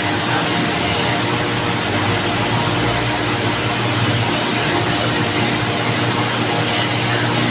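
Electric table fan running steadily: an even rush of air noise with a low hum underneath.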